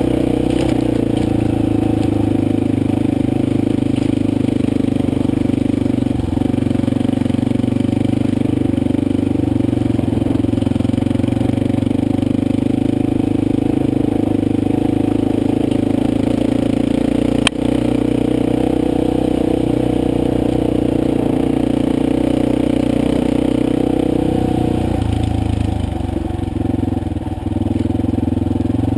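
Motorcycle engine running steadily while riding, with one sharp click about two-thirds of the way through. The engine eases off and quietens a little near the end.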